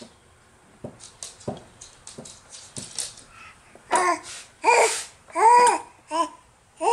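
Baby babbling a run of repeated "bah bah bah" syllables, starting about halfway through, after a few soft scattered taps and clicks.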